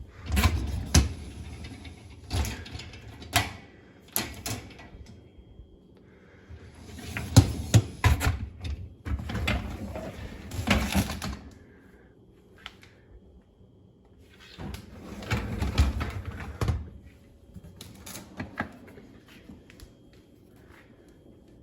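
Irregular clattering, knocks and rustling from a new dishwasher's racks and door being handled as shipping foam is pulled out. The clatters come in bunches with quiet gaps between them, fading toward the end.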